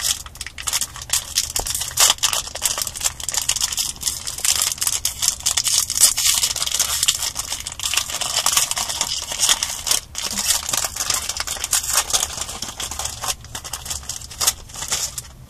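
Foil wrapper of a Yu-Gi-Oh booster pack being crinkled and torn open by hand: a dense crackle that stops near the end.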